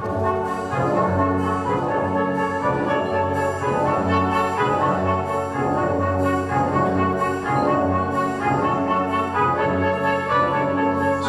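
Classical orchestral music with brass to the fore, moving through a series of held chords that change about once a second.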